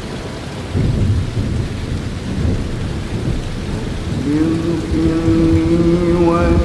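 Steady heavy rain with rolling thunder; a deep rumble comes in about a second in. About four seconds in, a man's chanting voice starts Quran recitation on a long held note over the storm.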